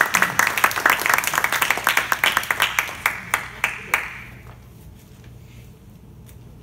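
Small audience applauding, the clapping thinning to a few last single claps and stopping about four seconds in.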